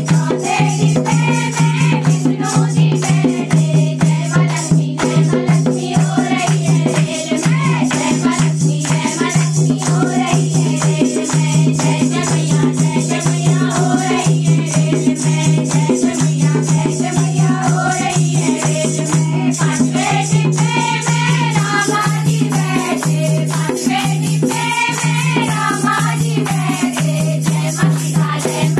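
Women singing a devotional bhajan to Mata Rani together, with hand-clapping and a dholak and rattling percussion keeping a fast, steady beat.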